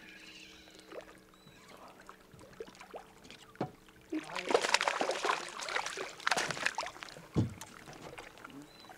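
A hooked largemouth bass splashing and thrashing at the water's surface for about three seconds as it is brought to the boat, starting about four seconds in. A single dull thump follows about a second later, as the fish is lifted out.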